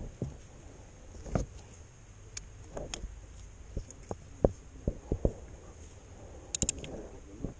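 Socket wrench and extension being worked on a Jeep 3.0 CRD's oil filter housing cap to unscrew it: scattered metal clicks and knocks, with a quick run of about four sharp clicks near the end.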